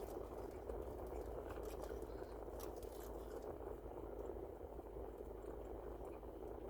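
A person chewing a bite of a grilled chicken wrap, with faint wet mouth clicks, over a steady low background hum.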